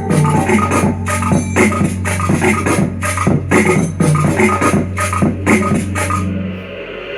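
Electronic dance music with a steady, heavy bass and a regular beat, played loud through a Zealot S61 Bluetooth speaker set to about 60% volume. Near the end the drums and high end drop away, leaving mostly the bass.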